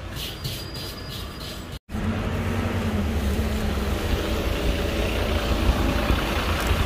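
For about two seconds, quiet background with a few light clicks. Then, after a sudden break, a London bus's engine runs as the bus pulls past close by, over a steady low rumble of street traffic.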